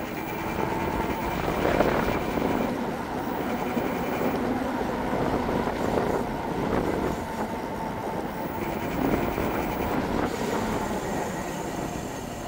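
Eahora Romeo 2 electric bike in motion: a faint hub-motor whine over steady tyre and road noise. This is the motor noise from the front and rear hub motors that the owner is concerned about.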